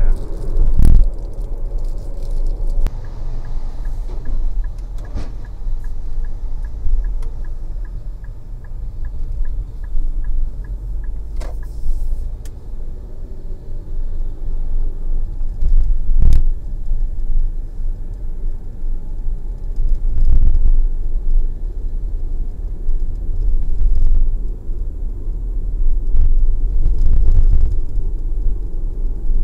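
Low rumble of road and engine noise heard inside a moving car, with a few thumps from bumps in the road. From about three seconds in until about eleven seconds there is a steady run of quick, evenly spaced ticking.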